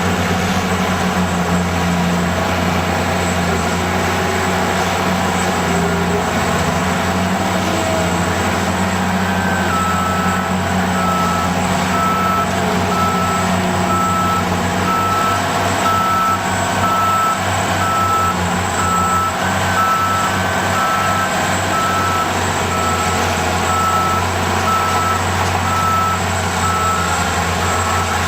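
Caterpillar D10T crawler dozer's diesel engine running steadily under load. From about a third of the way in, its reverse alarm beeps about once a second, meaning the dozer is backing up.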